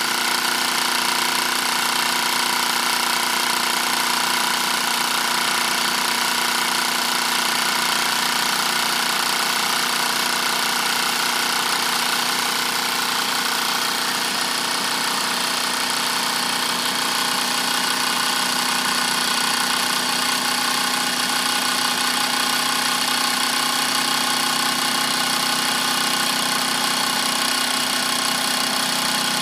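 Wilesco toy live-steam engine running fast and steady: an even mechanical whir with a hiss of steam over it, holding the same speed throughout.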